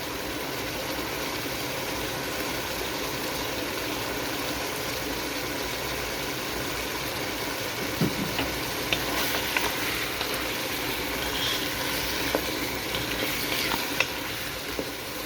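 Lamb, carrots and tomatoes sizzling steadily in a pot while tomato paste is stirred in, with a few light clicks of the utensil against the pot in the second half.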